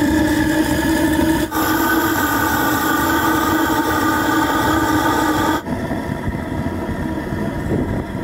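Burner firing the boiler of a home-built steam motorcycle, running with a steady pitched hum over a low rumble. The sound changes abruptly twice, and about five and a half seconds in the hum fades into a plainer hiss.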